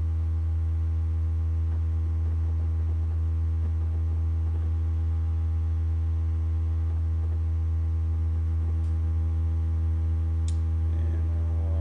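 Steady electrical mains hum, a low drone with a stack of evenly spaced overtones, with two faint clicks late on.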